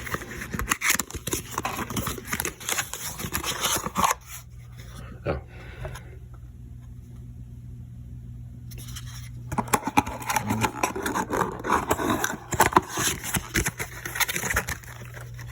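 Packaging being handled during an unboxing: plastic and cardboard rustling, crinkling and scraping, with a quieter lull in the middle before the crinkling picks up again. A low steady hum runs underneath.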